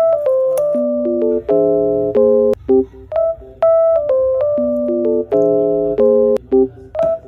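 Background music: a light keyboard tune of short chords that start and stop crisply at an even pace.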